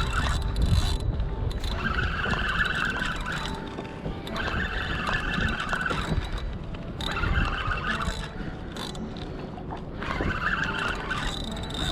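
Fishing reel whirring in repeated spells of a second or two, over the rumble of wind buffeting the microphone.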